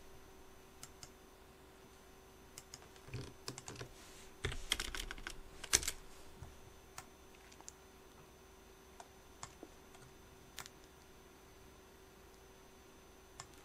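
Sparse clicking of computer keyboard keys and mouse buttons, with a denser run of keystrokes about four to six seconds in, over a faint steady hum.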